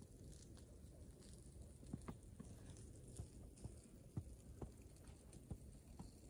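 Faint footsteps crunching in snow, about two steps a second, starting about two seconds in, over a low wind rumble on the microphone.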